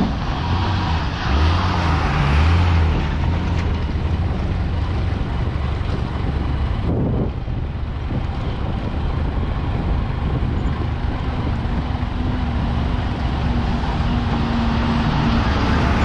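Steady low engine drone and road noise from a vehicle travelling along a rough, unpaved dirt road.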